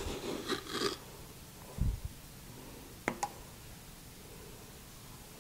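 A measuring cup scooping granulated sugar from a glass jar: a soft grainy scrape at the start, a dull thump about two seconds in, then two quick sharp clicks just after three seconds.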